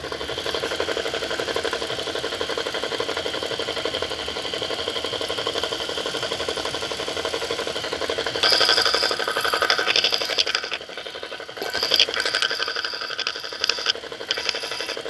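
Fast rattling, knocking noise from the alternator of a running 2016 Toyota Corolla, an intermittent noise whose cause is unknown. It gets louder and more uneven about eight seconds in and briefly drops away a few seconds later.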